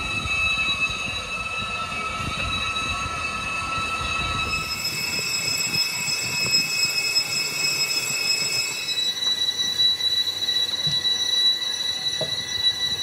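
Metal-on-metal squeal from a machine working a truck brake drum: several steady high-pitched tones that shift to new pitches about four and a half and nine seconds in, over a rough rattling noise.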